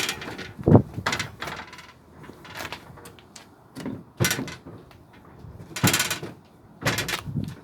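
A series of irregular knocks and clatters, a dozen or so sharp ones spread unevenly, with a heavier thud about a second in.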